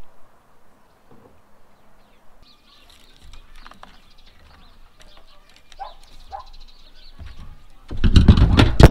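Faint outdoor ambience with light high chirps, then a loud rumbling scrape of the camera being moved and handled about a second before the end.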